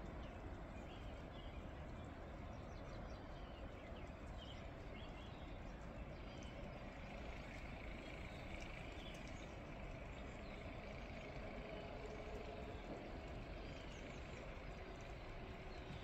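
Steady outdoor ambience of a spring snowstorm: an even low rumble and hiss, with faint short chirps scattered through it.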